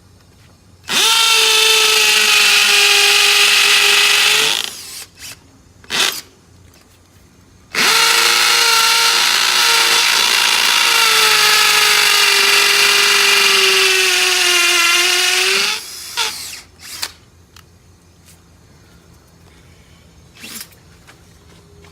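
Power drill boring anchor holes into concrete: two long runs of a steady motor whine, the first about three and a half seconds and the second about eight seconds, its pitch sagging slightly near the end as the bit loads up. A few short knocks fall in the pauses between runs.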